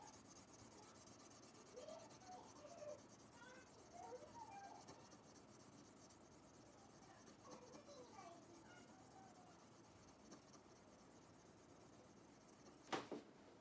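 Faint, continuous hand rubbing on a metal edge iron, like abrasive or polishing strokes during rust removal, with a sharp click near the end.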